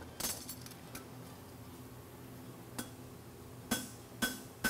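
Farrier's hammer striking a steel draft horseshoe on the anvil while flattening it. A few light taps, then from about three and a half seconds in, ringing blows about half a second apart.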